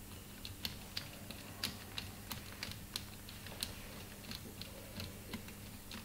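Faint, irregular light clicks, one or two a second, of a hand driver working the belt tensioner screw on a Brose e-bike motor while the belt is tensioned, over a low steady hum.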